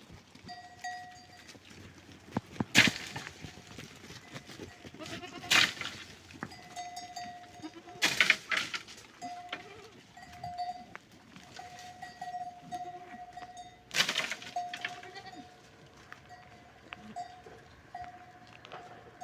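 Goats bleating, four loud calls a few seconds apart, over a faint, on-and-off high tone.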